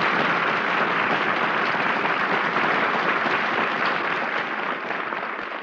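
Studio audience applauding on a 1940s radio broadcast recording, steady and beginning to fade near the end.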